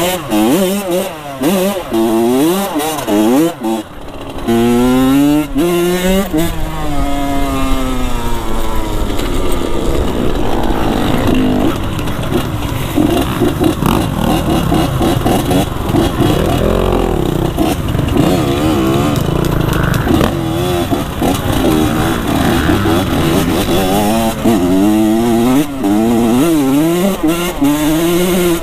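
Dirt bike engine being ridden, revving up and down over and over so its pitch keeps rising and falling.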